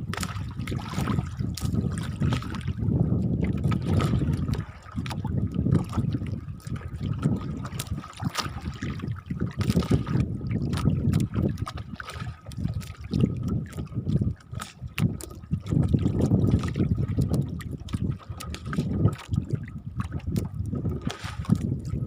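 Water sloshing and lapping against the hull of a small fishing boat in uneven surges, with scattered small knocks.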